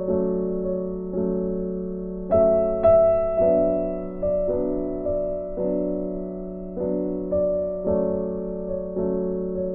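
Background piano music: slow, gentle chords struck about once a second, each ringing out and fading before the next.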